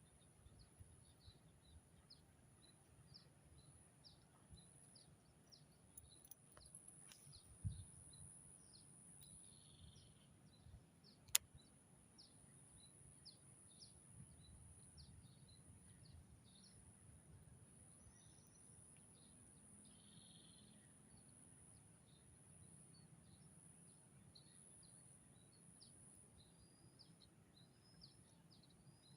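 Faint swamp-side ambience: frequent short bird chirps over a steady high hiss, with a low thump about eight seconds in and a sharp click about three seconds later.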